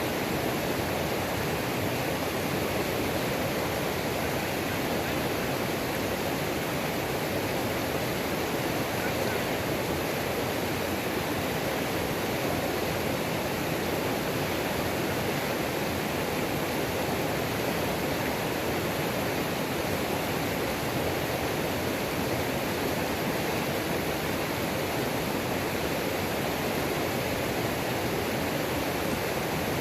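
Mountain creek waterfall: water pouring and rushing over rocks, a steady even roar with no breaks.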